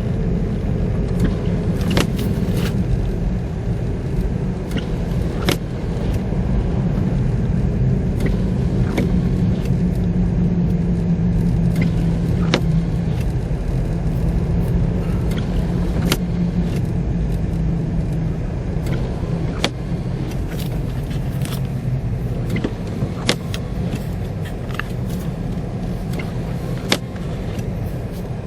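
Car driving: a steady low engine and road rumble, with sharp clicks scattered irregularly throughout.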